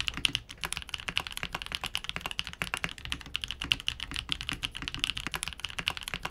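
Steady, fast typing on a Vanguard 65 custom mechanical keyboard with an aluminium plate and only plate foam fitted: a continuous run of crisp key clacks over a low rumble that comes from the case's resonance.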